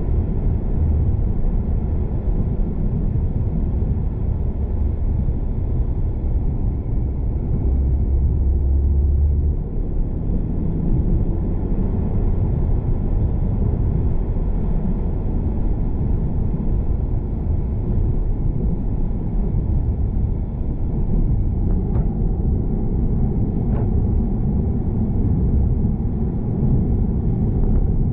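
A car driving along a road: steady low rumble of road and engine noise, swelling briefly for a second or so about eight seconds in, with two faint ticks near the end.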